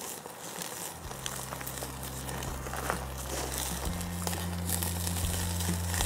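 A thick bone-in ribeye sizzling and crackling as it sears on a grill grate over a charcoal chimney of hot coals. Low held background music notes come in about a second in.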